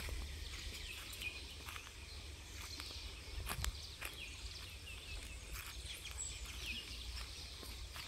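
Forest birds chirping, many short high calls overlapping throughout, over a steady low rumble. A few sharp clicks come around the middle.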